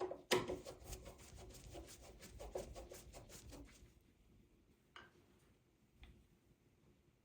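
Metal doorknob and latch hardware being fitted by hand: two sharp knocks, then a fast run of small clicks and scraping for about three seconds, and two single clicks near the end.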